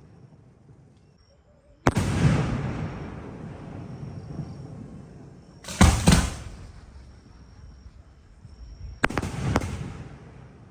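Aerial firework shells bursting: three loud booms, about two, six and nine seconds in, the last two doubled, each followed by a long rumbling echo that fades over a few seconds.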